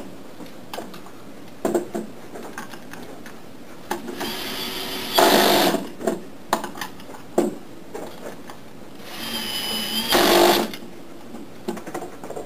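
Cordless power screwdriver driving 1/4-20 bolts into nylon lock nuts on a gearbox, in two short runs about five seconds apart, with a whine leading into the second. Small clicks of the wrench and parts come between the runs.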